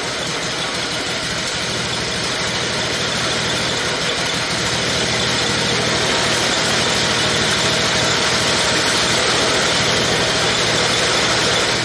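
Honda GC160 single-cylinder four-stroke engine running steadily on its first start after being swapped into a garden tractor, shaking hard on mounts that need more welding.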